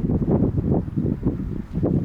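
Strong wind buffeting the microphone: a loud, gusting low rumble that rises and falls several times a second.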